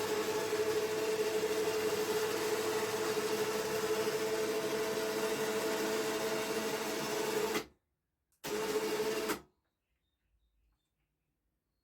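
An electric motor running with a steady hum and a strong held tone, cutting off suddenly about eight seconds in, then running again for about a second before stopping.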